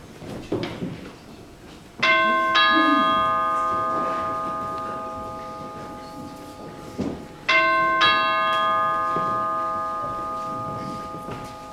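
Two-tone ding-dong doorbell chime rung twice, about five and a half seconds apart; each pair of notes rings on and fades slowly.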